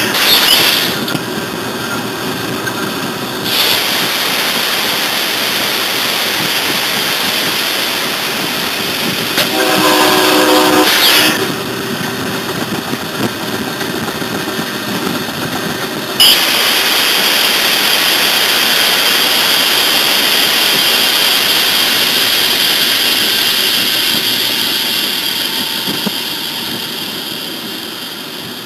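Locomotive cab noise as the train runs along the track, with one long blast of the train horn about ten seconds in. About sixteen seconds in, a loud hiss sets in suddenly and slowly fades toward the end.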